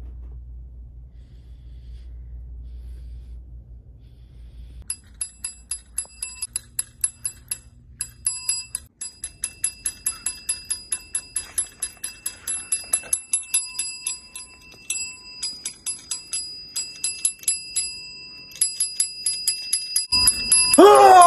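A small metal desk call bell tapped over and over, several dings a second, each ding ringing on with the same clear tones, for about fifteen seconds after a low hum. Near the end a sudden loud blast with a falling tone cuts in.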